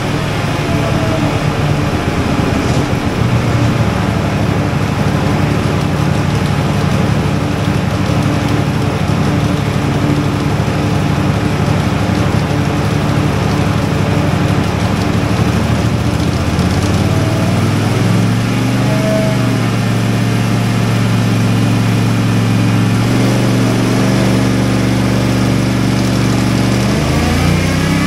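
CFMoto 450MT's parallel-twin engine running under load on a roller chassis dyno, loud and continuous, with its clutch switch bridged so the ECU runs its clutch-in ignition timing map. The engine note holds steady for about half the time, then shifts pitch in steps in the second half.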